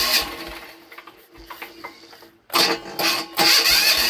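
Electric starter cranking a woodgas-converted single-cylinder diesel engine in two bursts, the second beginning about two and a half seconds in; the engine does not catch, and the mixture still needs more air. A steady hum runs underneath.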